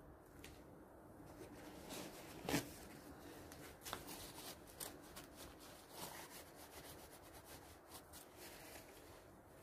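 Faint handling noise of small lawnmower carburettor parts being fitted back together: light clicks and rubbing, with one sharper knock about two and a half seconds in and a few smaller taps after it.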